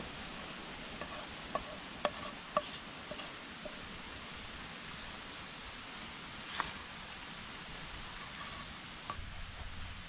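Spatula scraping and knocking against a frying pan as fried food is scooped out onto a plate, with a run of short ringing metal clinks early on and one louder knock past the middle, over a soft steady hiss.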